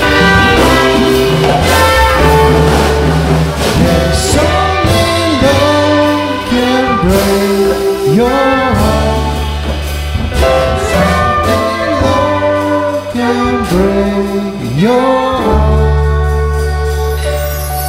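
Live jazz sextet playing an instrumental passage: trumpet and saxophone lines over piano, upright double bass and drums. Near the end the playing thins to a held low note.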